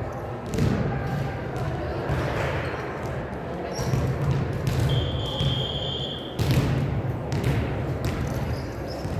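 Gym game sounds: a basketball bouncing on a hardwood court in a big hall over crowd chatter, with short sneaker squeaks. A referee's whistle sounds once for about a second near the middle.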